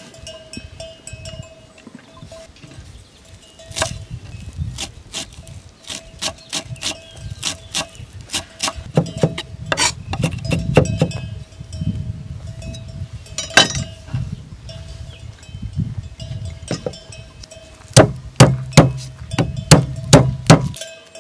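Chef's knife chopping fresh parsley on a wooden cutting board, an irregular run of knocks on the wood. Near the end come a few louder knocks as the knife cuts garlic cloves.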